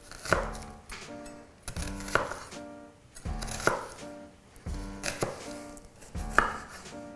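Chef's knife chopping an onion on a wooden cutting board, with background music playing over it.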